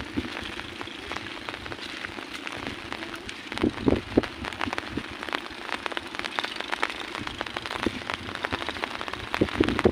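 Rain falling, a steady hiss full of close, sharp drop hits, with a few louder knocks about four seconds in.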